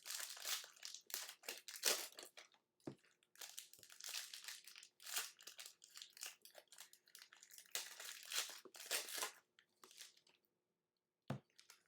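Crinkling of a plastic trading-card pack wrapper as it is handled and torn open, in irregular rustles, with a soft thump near the end.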